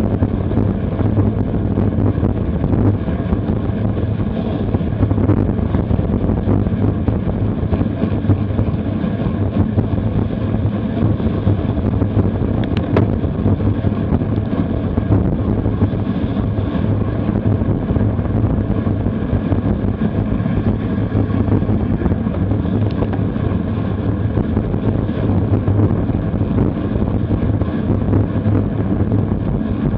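Steady wind rush buffeting the microphone of a camera mounted on a road bike riding in a pack at about 25 mph, mixed with tyre noise on the wet road.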